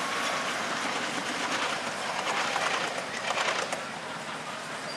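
A ride-on miniature railway train running away along the track, its wheels clicking in short runs over the rail joints and growing slowly fainter. Birds call in the background.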